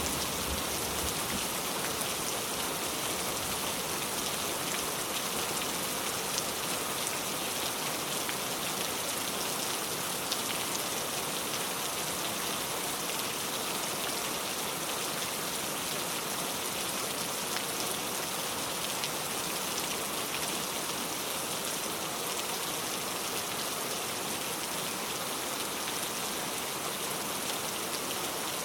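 Heavy rain falling steadily, a dense even hiss of drops with a few sharper individual drop ticks.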